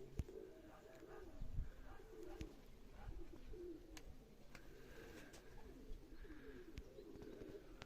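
Domestic Baku pigeons cooing, a steady run of low, faint warbling coos, with a few faint clicks scattered through.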